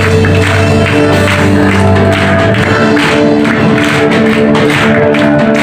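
Loud live praise-and-worship band music: an upbeat song with a steady drum beat over sustained low held notes.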